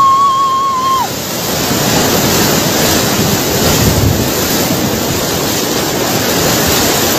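A woman's long, held scream that breaks off about a second in, then the steady rush and churn of the muddy tidal bore wave surging over the riverbank and around the phone's microphone.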